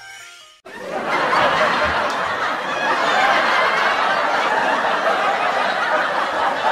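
A crowd of people laughing together, starting suddenly about half a second in as a short music passage cuts off, and holding steady throughout.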